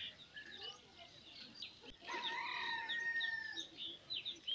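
A rooster crowing once, about two seconds in, one call held for about a second and a half. Small birds chirp throughout.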